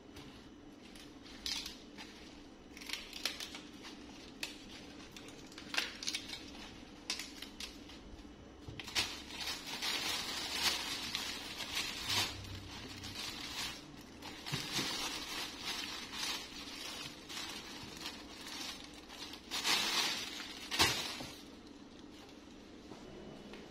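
Thin plastic produce bags rustling and crinkling in bursts as vegetables are handled, with a few sharp clicks and knocks of produce and plastic baskets being set down.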